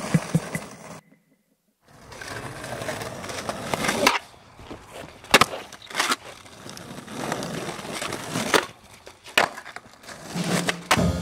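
Skateboard wheels rolling on rough asphalt, with several sharp wooden clacks of the board being popped and landed.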